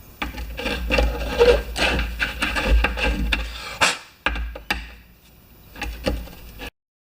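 Things being handled on a workbench: a run of rubbing, scraping and sharp clicks, thinning out after about four seconds, with a few more knocks before the sound cuts off abruptly near the end.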